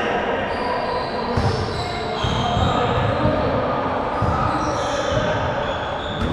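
Basketball game in a gym: the ball bouncing on the court with repeated dull thuds, short high squeaks from shoes on the floor, and players' voices echoing in the hall.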